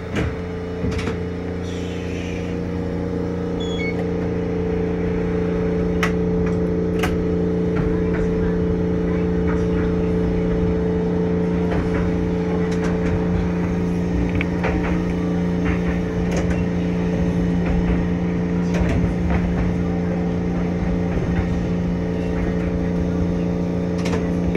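Streetcar in motion, heard from inside the car: a steady electrical hum from its equipment over a running rumble, with scattered sharp clicks and knocks from the wheels on the track. The sound grows louder over the first few seconds, then holds steady.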